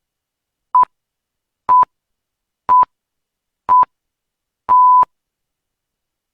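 Electronic countdown beeps: four short, identical beeps about a second apart, then a longer final beep, all at the same steady mid pitch.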